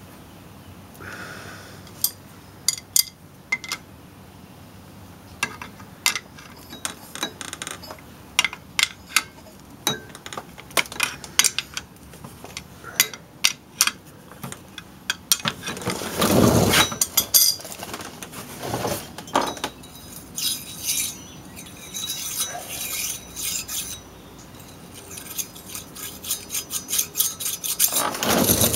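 Metal hand tools clicking and clinking as a wrench turns the forcing screw of a clutch installer tool, pressing the AC compressor's clutch hub onto its shaft while a spanner-type holding tool keeps the hub still. The clicks come irregularly, with a louder, longer noise about two thirds of the way through.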